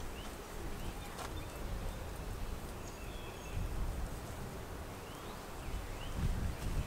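Outdoor ambience: a few faint, short bird chirps over a low, uneven rumble, with one sharp click about a second in.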